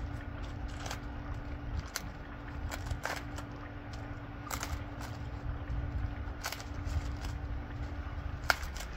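A machine hums steadily and low, with scattered sharp cracks and snaps over it; the loudest snap comes near the end.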